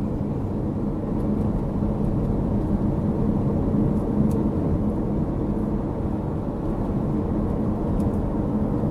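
Steady low rumble of a car heard from inside its cabin: engine and road noise, with a faint constant hum.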